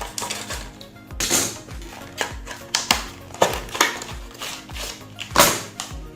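Background music with a steady beat, about two beats a second. Over it come irregular clicks and crackles of plastic being handled as the SSD's packaging is opened.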